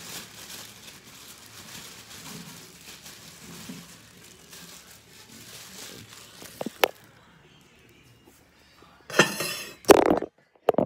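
Kitchen handling sounds as chunks of yellow squash and onion go into a cast iron skillet: a faint rustle, a couple of sharp clinks of dishes about seven seconds in, then loud knocks and rattles near the end.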